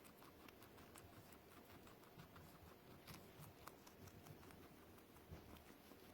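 A small pet chewing its food: faint, quick, irregular crunching clicks, a few louder than the rest.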